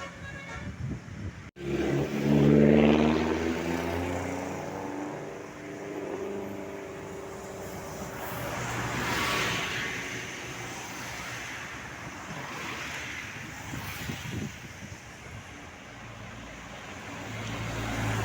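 Road traffic passing. After a brief dropout about a second and a half in, a vehicle passes close, its engine note falling in pitch as it goes by. More vehicles pass later.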